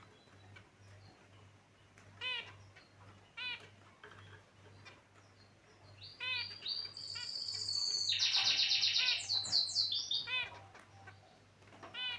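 Caged finches calling: scattered short chirps, then about halfway through a fast run of rapidly repeated buzzy notes builds up and is the loudest part, before single chirps return near the end.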